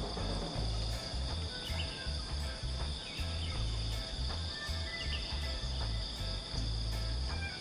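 Steady high-pitched drone of insects, two even tones held throughout, over a low, uneven rumble.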